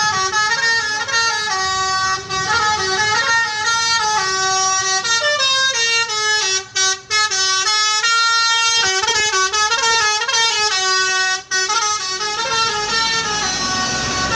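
Indonesian 'telolet' bus horn, a multi-tone musical horn, playing a melody of held notes that step up and down in pitch, with a couple of brief breaks.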